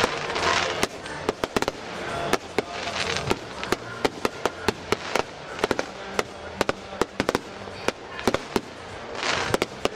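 Fireworks display: a rapid, irregular string of sharp pops and bangs over a rushing hiss that swells several times, as shells and crackling effects go off.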